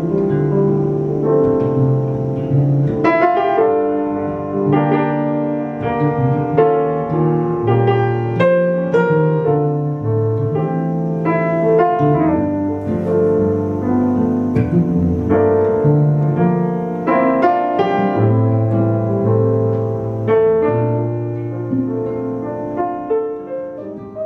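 Grand piano and nylon-string guitar playing a slow instrumental duet, the piano most prominent, getting quieter toward the end.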